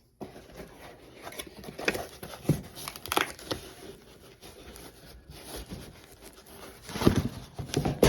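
Packaging being opened by hand to take out a replacement washing-machine water inlet valve: irregular crinkling, rustling and tearing, with a few sharper crackles and a louder burst of handling near the end.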